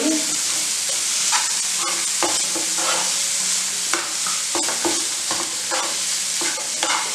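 Metal spoon stirring grated paneer, mashed potato and spices in hot oil in a frying pan: a steady sizzle with irregular scrapes of the spoon against the pan, about one or two a second.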